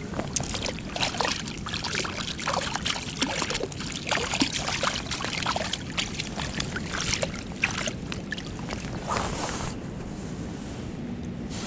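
Steady rush of creek water with many short, irregular clicks and rustles close by.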